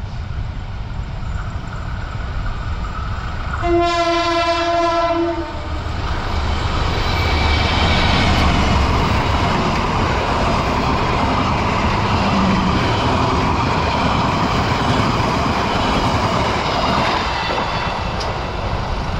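A train sounds one steady horn blast of about a second and a half, then passes the crossing, its wheels on the rails loud for about twelve seconds before fading.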